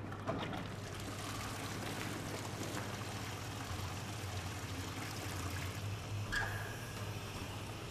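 Water running in a steady pouring, trickling stream, with a short click about six and a half seconds in.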